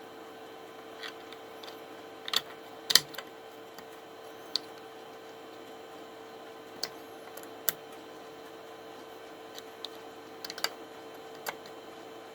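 About a dozen sharp clicks and taps at irregular spacing, the loudest two close together a few seconds in, as small 3D-printed plastic fidget clicker parts are handled, over a steady hum.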